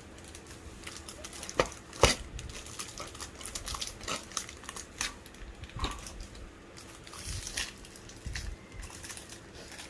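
Packaging and box contents being handled: crinkling and rustling with scattered sharp clicks and knocks, the loudest about two seconds in.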